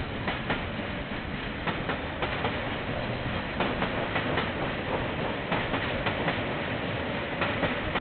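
A train rolling past, its wagon wheels clacking in pairs over the rail joints under a steady rumble, heard through a security camera's band-limited microphone.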